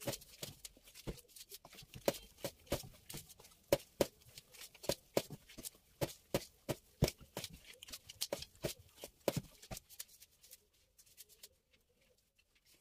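Hands slapping and patting soft semolina bread dough: a fast, irregular run of sharp slaps that stops about ten seconds in.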